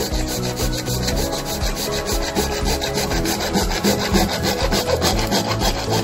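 Orange PVC pipe being scraped by hand, a steady back-and-forth rubbing and rasping on the plastic.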